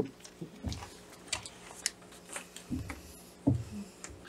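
Paper money rustling as bills are handled and put down on a table, with a few dull knocks on the tabletop.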